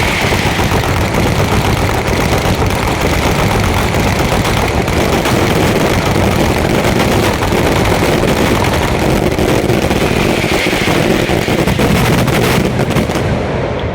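Fireworks going off in a dense, continuous barrage of rapid bangs and crackles, like a machine gun, thinning out and quieting near the end: the closing barrage of the display.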